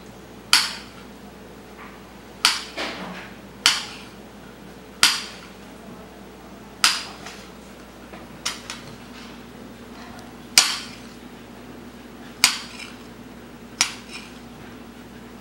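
Knife blade knocking against a ceramic plate while dicing aloe vera gel: about nine sharp clinks, irregularly spaced one to two seconds apart, each with a short ring.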